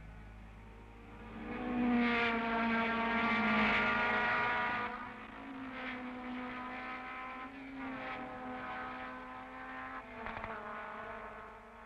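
Formula Junior single-seater racing cars running hard as a group comes through a corner. Several engine notes rise and fall, loudest from about one to five seconds in, with further cars following.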